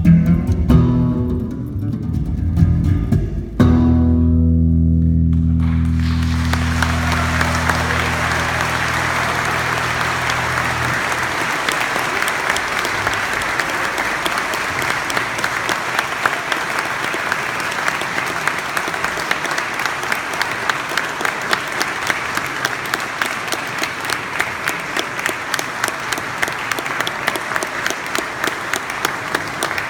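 Electric bass guitar playing the last notes of a solo, ending on a low held note that rings for about seven seconds. Audience applause starts about six seconds in and goes on, turning into rhythmic clapping in unison in the second half.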